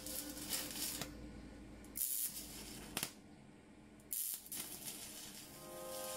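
Arc welding in short bursts: a hissing crackle through the first second, then two brief tack welds about two and four seconds in.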